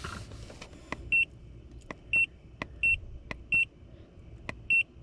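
Ancel VOD700 handheld scan tool giving five short, high confirmation beeps about a second apart as its menu buttons are pressed, each beep just after a sharp click, over a low steady hum.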